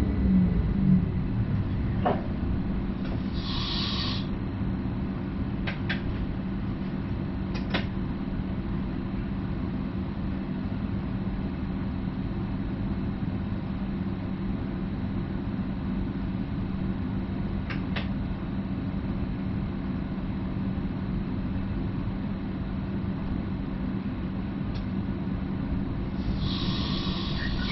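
Stadler FLIRT Sm5 electric commuter train heard from the driver's cab: a steady low hum and rumble, with the motor whine falling in pitch in the first second and a few sharp clicks scattered through.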